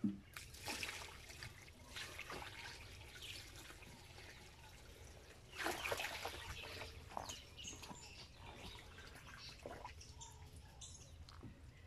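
Water in a tub being stirred and splashed, with dripping and trickling between irregular splashes; the longest and loudest splash comes about six seconds in.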